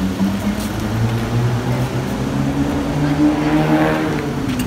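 A car engine running close by, a steady low hum whose pitch rises briefly about three and a half seconds in as it revs.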